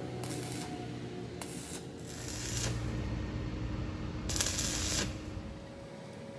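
Hydraulic press running, a low hum that grows heavier about two seconds in and drops away near the end, with several short hissing bursts and a faint click.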